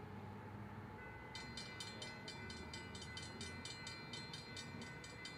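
Railroad crossing warning bell begins ringing about a second in, a rapid, even clanging of about four to five strokes a second, over a low rumble.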